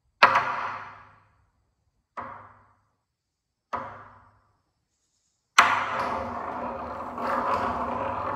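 Hokku, a large Zen temple barrel drum, struck with wooden sticks: three single strokes about two seconds apart, each ringing out and dying away, then a hard stroke about five and a half seconds in that runs into continuous rapid drumming. It is the signal for morning sutra chanting and zazen.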